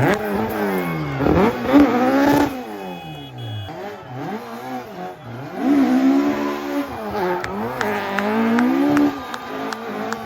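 Rally car engine revving hard, its pitch climbing and dropping again and again as it accelerates, shifts and lifts off, with a few sharp cracks in the second half.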